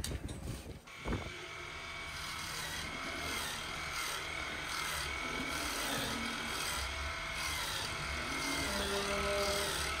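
Handheld electric hoof-trimming grinder running and grinding a cow's hoof, a steady whine whose pitch dips about once a second as the disc bites. A knock comes about a second in.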